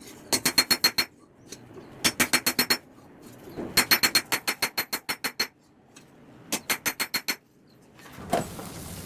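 Hammer striking hot steel on an anvil in quick, ringing runs of light blows, about ten a second, in four bursts with short pauses between. A steady rushing noise with a thump starts near the end.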